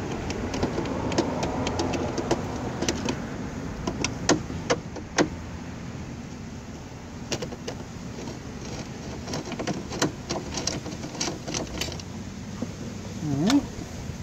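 Scattered light clicks and ticks of a small screwdriver being turned by hand to back out the screws in a car door panel, over a steady low background hiss. A short swooping tone, dipping then rising, comes near the end.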